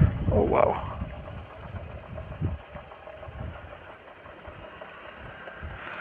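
Hero XPulse 200 4V motorcycle's single-cylinder engine running with a rhythmic clicking ('khat khat'), which the rider places at the clutch. Wind on the microphone is loud for about the first second, then drops away.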